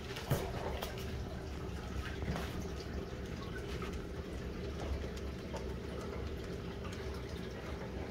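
Reef aquarium's water circulation: water trickling and splashing with scattered small drips over a steady low hum of its pumps. There is a single brief thump about a third of a second in.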